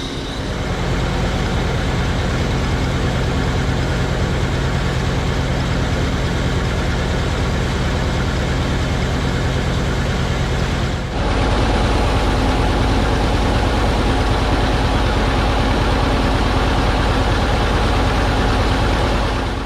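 John Deere 720 two-cylinder tractor engine running steadily with a fast, even firing beat. About eleven seconds in it gets louder and its tone shifts.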